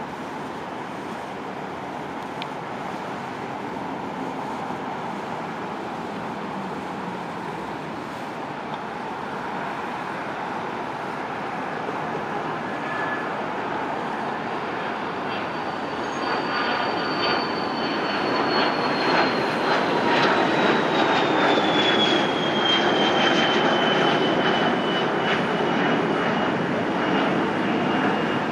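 Twin Pratt & Whitney Canada PW545 turbofans of a Cessna Citation XLS+ business jet at takeoff power, starting faint and distant on the takeoff roll and growing louder as the jet lifts off and climbs past. A high engine whine falls steadily in pitch as it goes by, with the sound at its loudest about two-thirds of the way in.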